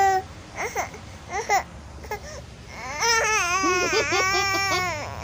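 Baby vocalizing: a few short babbling cries, then, about three seconds in, breaking into a long wavering crying wail.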